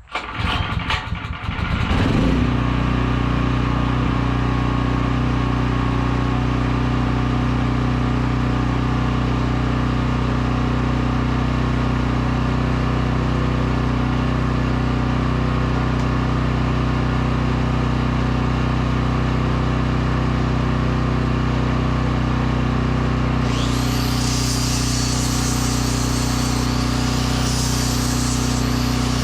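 Portable generator engine starting up, sputtering for about two seconds before settling into a steady run. About 24 seconds in, a high whine of an electric power tool joins it, rising and falling in pitch as the tool spins up and is loaded.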